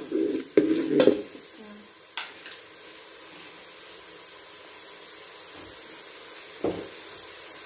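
Green chillies and whole spices sizzling in oil in a metal pot, with a steady hiss. A metal slotted spatula knocks and scrapes against the pot a few times in the first couple of seconds and once near the end.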